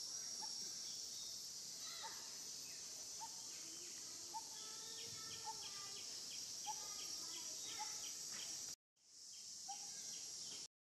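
Steady high-pitched drone of forest insects, with a short note repeating about once a second over it. The sound cuts out briefly twice near the end.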